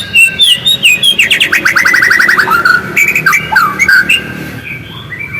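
White-rumped shama singing: a rapid run of varied whistles and chirps, with a fast trill of short falling notes about a second in, thinning out near the end.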